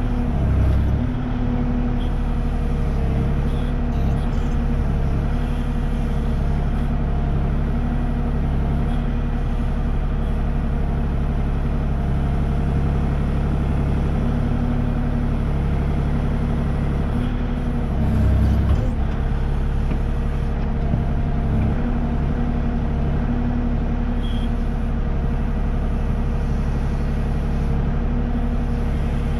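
Kubota KX040 mini excavator's diesel engine running steadily while the boom and bucket work the soil. Its hydraulic load swells briefly just after the start and again a little past halfway.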